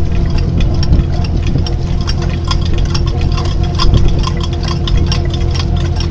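Squid-jigging machines running on a fishing boat, their reels and rollers making many irregular clicks and knocks over the steady drone of the boat's engine.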